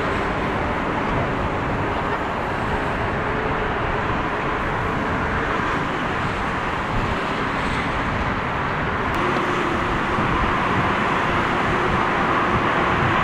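Four-engine Boeing 747 jet engines roaring at take-off thrust as the airliner rolls and lifts off. About nine seconds in, the sound changes to a slightly louder, steadier engine noise with a low steady tone, from a twin-engine Boeing 787 taxiing.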